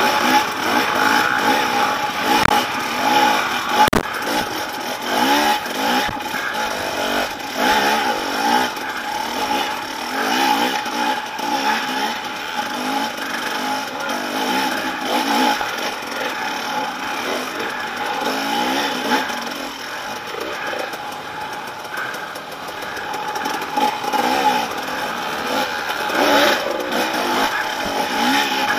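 Several dirt bike engines, the nearest being the camera bike's own, revving up and down in short bursts under load on a steep rocky hill climb.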